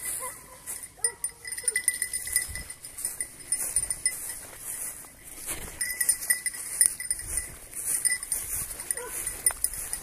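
Pack of young hounds (griffons bleus, bleus de Gascogne and Anglo-French hounds) baying at a wild boar in short, repeated calls, with the bells on their collars jingling steadily.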